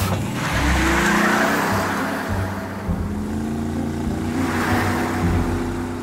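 Delivery truck engine sound effect as the truck drives off and passes by, its noise swelling at the start and again about two-thirds of the way in, with background music.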